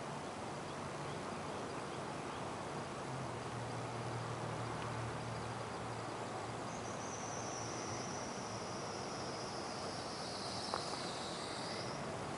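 Steady outdoor night-time hiss with a faint low hum. About seven seconds in, a high-pitched insect trill sets in, slides slightly lower and stops shortly before the end. A single click comes near the end.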